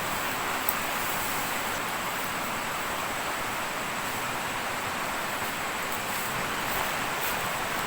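Steady hiss of running water, even and unbroken, with a faint thin high-pitched tone held above it.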